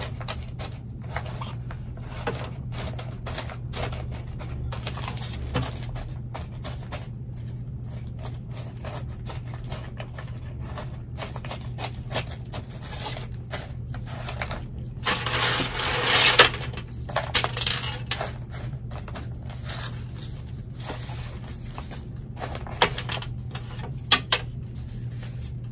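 Bark orchid potting mix crunching, clicking and rustling as gloved hands work it into a plastic pot around the plant's roots, in irregular crackles with a louder spell about fifteen seconds in.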